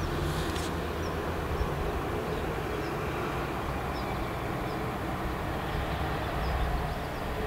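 Steady outdoor background rumble with a low hum, like distant traffic, and faint short high chirps repeating roughly once a second; a brief hiss sounds just after the start.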